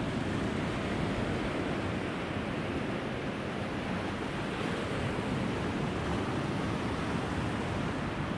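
Steady ocean surf washing up a sandy beach, an even rushing noise without a break, with some wind buffeting the microphone.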